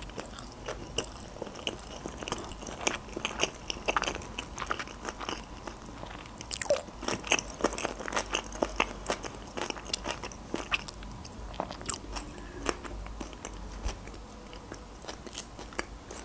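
A person chewing a mouthful of sushi roll close to the microphone: many quick, irregular mouth clicks, a little louder and denser from about six seconds in.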